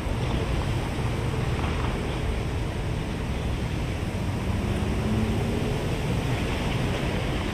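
Steady outdoor background noise with a low rumble, and a faint hum that comes and goes about five seconds in.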